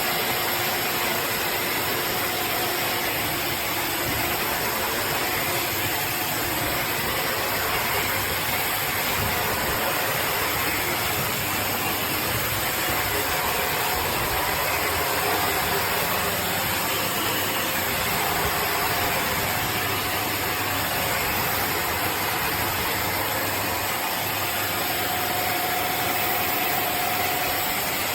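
Shark DuoClean vacuum cleaner's motor running steadily: a constant loud rushing air noise with a faint steady hum under it.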